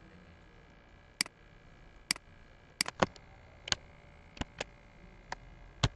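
Sharp clicks of a computer mouse, about ten of them at irregular intervals, a few coming in quick pairs, over a faint steady room hum.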